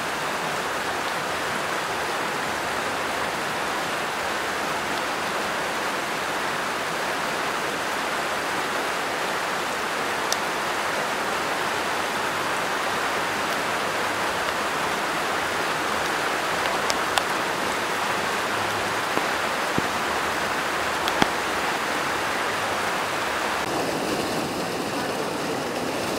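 Steady rushing of a river in flood, fast turbulent water pouring past, with a few sharp ticks in the middle and a change in the sound near the end.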